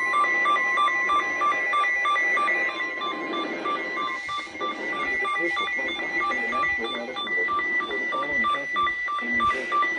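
NOAA Weather Radio alert: the steady 1050 Hz warning alarm tone sounds until about four seconds in. Under it, a weather radio receiver's rapid pulsed alert beeping, about four beeps a second at two pitches, carries on throughout.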